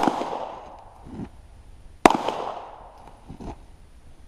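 Two handgun shots about two seconds apart, each a sharp crack trailing off over about a second.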